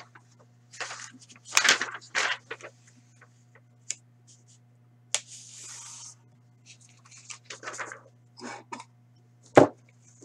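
A printed paper sheet being handled on a tabletop: irregular rustles and scrapes, a longer slide about five seconds in, and a sharp tap about a second before the end, the loudest sound.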